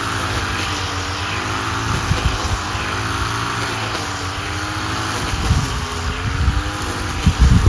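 An engine running, its pitch wavering up and down, with low irregular thumps of wind on the microphone, loudest near the end.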